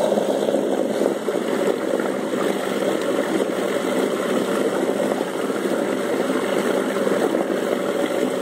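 1991 Evinrude 3 hp two-stroke outboard motor running steadily in a test tub, its propeller churning the water.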